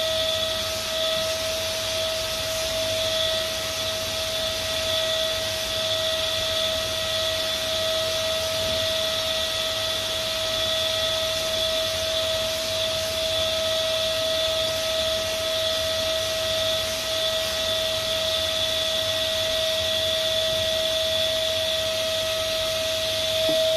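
Canister vacuum cleaner running steadily, its motor giving an even, high whine over a constant hiss.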